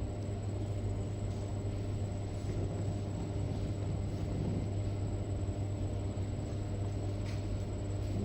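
Steady low machine hum with a faint high whine, unchanging throughout, the kind of background drone a running kitchen appliance or ventilation makes.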